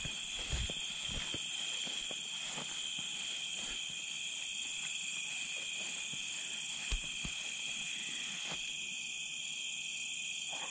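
A steady chorus of insects, several high pitches droning without a break, with a few soft footfalls through grass and a small thump about seven seconds in.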